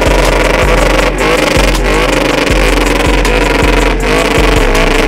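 Pickup truck engine revving hard through a tire-smoking burnout, under loud music with a heavy bass line.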